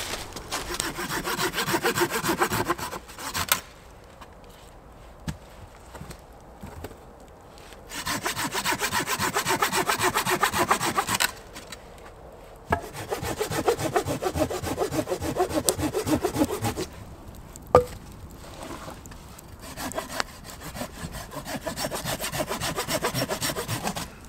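Hand saw cutting through a log in four bouts of quick back-and-forth strokes, with short pauses between them. A single sharp snap comes shortly before the last bout.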